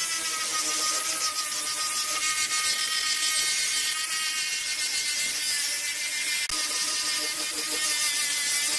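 Small electric power tool running steadily, a motor whine under a strong high hiss.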